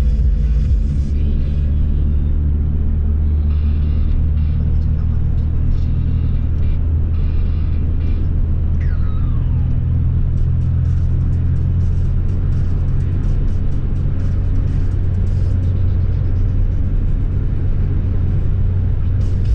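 Steady low engine and road rumble of a car driving, heard from inside the cabin, with music playing over it.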